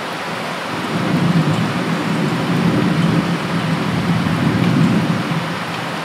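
Torrential typhoon rain pouring steadily, with a long rumble of distant thunder that swells about a second in and dies away near the end.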